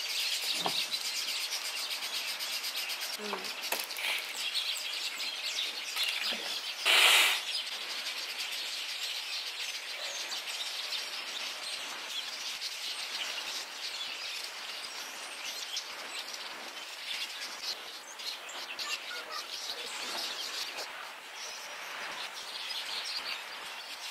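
Many small birds chirping continuously in a dense, high-pitched chatter, with one short loud burst of noise about seven seconds in.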